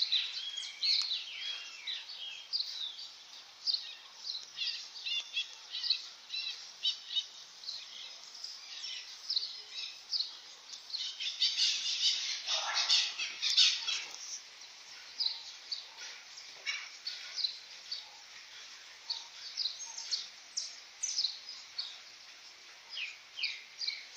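Birds chirping: many short, high chirps and calls overlapping, busiest about halfway through.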